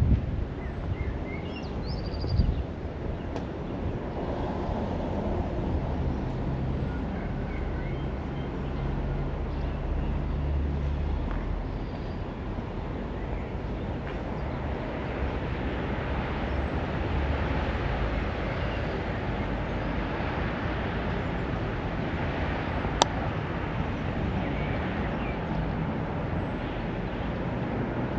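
Street traffic: a vehicle's engine running with a steady low rumble, and tyre and road noise swelling and fading through the middle. A single sharp click comes late on.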